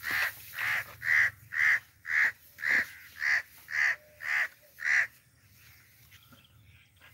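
Bird giving a rapid series of about ten harsh alarm calls, roughly two a second, stopping about five seconds in. These are the calls of a nesting bird upset by the dogs near its young.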